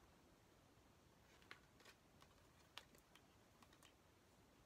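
Near silence broken by a few faint, sharp clicks and light rustles of glossy photocards being handled and flipped through.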